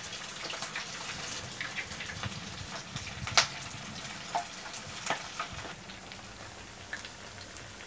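Shrimp-and-rice rolls deep-frying in hot oil in a pan: a steady sizzle, with a few sharp clicks, the loudest about three and a half seconds in.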